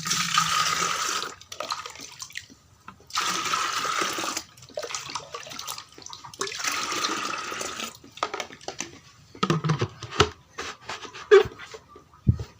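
Liquid poured into a chicken drinker in three separate pours, each lasting a second or so. Several light clicks and knocks follow near the end.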